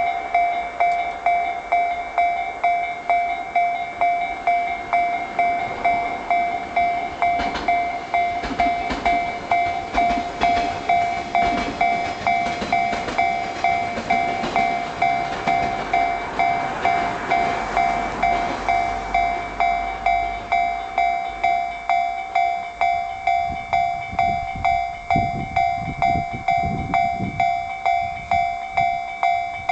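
Japanese level-crossing warning bell ringing, a two-tone ding repeating evenly about one and a half times a second throughout. Through the middle a train passes, its wheels clicking over rail joints, and a low rumble comes in near the end.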